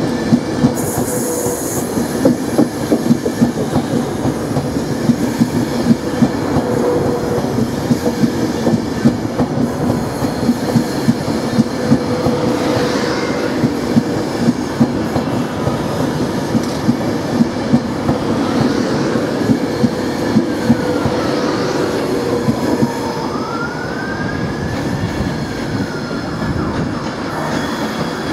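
Class 390 Pendolino electric train running along the platform: a steady rumble and hum with frequent clicks of the wheels over rail joints. In the second half, thin squeals glide down and then rise and fall.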